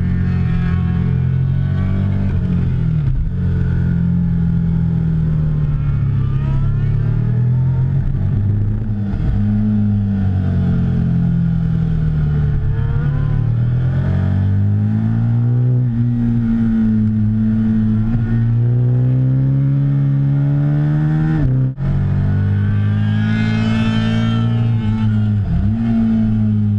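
KTM RC8 V-twin sport bike's engine heard from an onboard camera, pulling hard on track: the engine note climbs in pitch, drops back at gear changes and throttle lifts, and climbs again, over a rush of wind noise. About three-quarters of the way through the sound cuts out for an instant, then picks up again.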